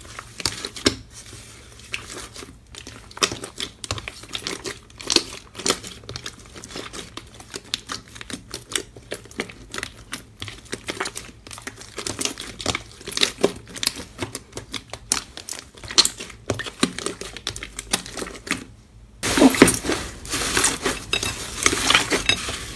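Slime being squeezed and pressed by hand, giving a steady run of small irregular pops, clicks and crackles. Near the end the sound breaks off briefly, then comes back louder and denser.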